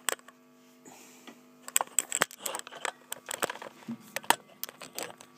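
Handling noise from the recording phone as it is held and fingered: irregular clicks, knocks and rubs, over a low steady electrical hum.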